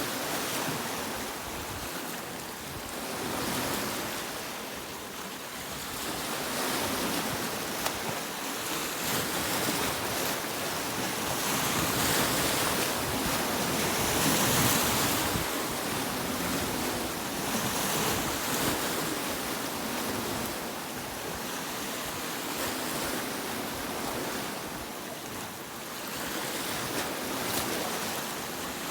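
Sea waves breaking on a beach, a continuous hissing wash that swells and recedes over several seconds, loudest about halfway through.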